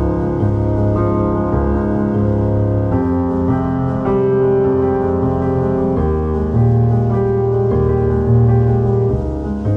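Background piano music with slow, held chords that change every few seconds.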